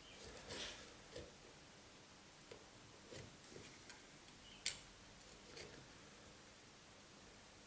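Mostly near silence, with faint scattered clicks and light scrapes of a hand blade being worked under the edge of a glued-on rear roof spoiler, and one sharper click a little before five seconds in.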